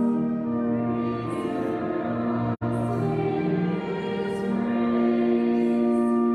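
Church music: a hymn sung over steady, held chords, with a split-second dropout in the sound about two and a half seconds in.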